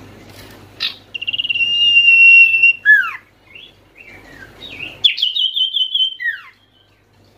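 Common iora (sirtu/cipoh) singing: two long, loud whistled phrases, each opening with a quick stutter of notes and held on one high pitch, then ending in a downward slur. A faint low hum lies underneath.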